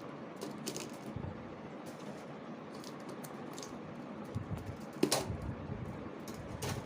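Keys on an HP 15-da1030tu laptop keyboard being pressed in irregular clicks, with one louder click about five seconds in.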